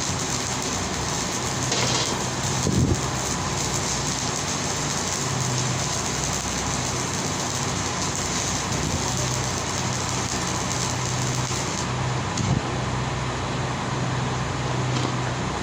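Steady mechanical hum and hiss of running machinery, with two short knocks, about three seconds in and again near the end.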